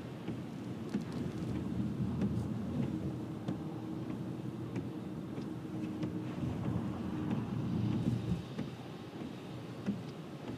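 Thunder rumbling for several seconds over the steady road noise of a car driving on a rain-soaked highway, heard from inside the car; the rumble swells about a second in and eases near the end.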